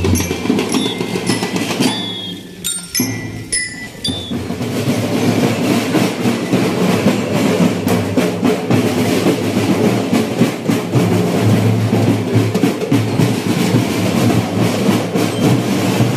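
Drum band music: marching drums and percussion playing a dense, steady beat.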